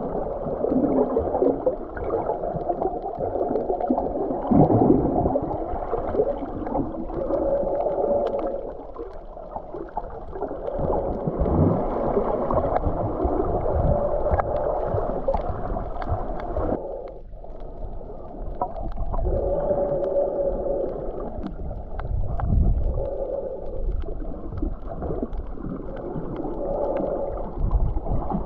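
Muffled underwater sound of sea water churning and gurgling around a submerged camera, with no sharp sounds on top, swelling and easing as the water moves.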